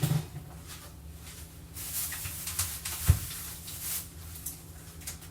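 Plastic-wrapped food packages rustling and crinkling as they are handled, in several short bursts, with one dull thump about three seconds in.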